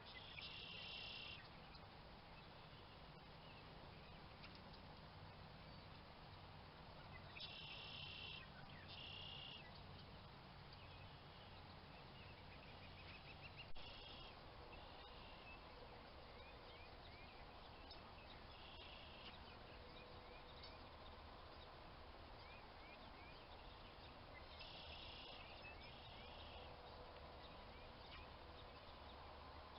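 Quiet outdoor ambience with a bird giving short, high, clear calls every few seconds, often two in quick succession. A single sharp click comes about halfway through.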